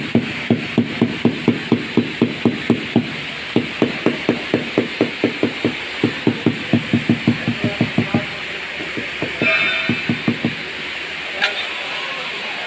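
Mallet tapping a ceramic floor tile to bed it into the mortar: a quick run of dull knocks, about four a second, with a short break about three seconds in, then slowing and stopping after about ten seconds.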